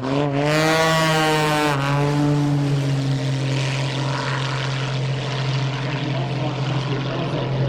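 Radio-controlled model airplane flying past with its propeller running; the pitch drops as it passes by, then holds steady.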